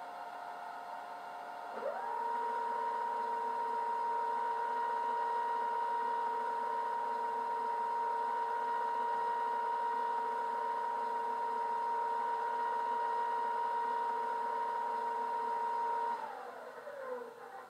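Digital sound-decoder recording of a Class 45 diesel's Sulzer engine, played through a model locomotive's small EM1 speaker. A steady idle note steps up to a louder, higher drone about two seconds in, holds steady, then winds down in pitch and fades near the end.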